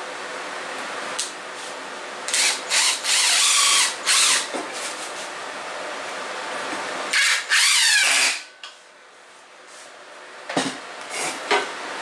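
Cordless driver running in short bursts as it drives screws into wood: a series of quick pulses about two seconds in, then a longer run about seven seconds in whose pitch drops before it stops. A few light knocks near the end.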